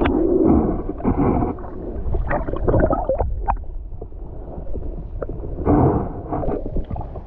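Wind rumbling on the microphone, with irregular knocks and rustles of the phone being handled up close.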